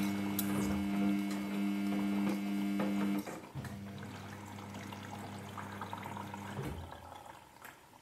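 Samsung Ecobubble front-load washer's direct-drive motor humming steadily as the drum tumbles the wet wash, with water swishing in the drum. About three seconds in the hum cuts off and the drum stops, leaving water sloshing quietly while it pauses between turns.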